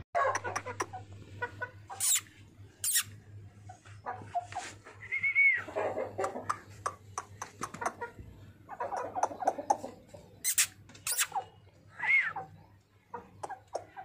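Chickens clucking irregularly, with two short, arched high-pitched calls and scattered sharp clicks.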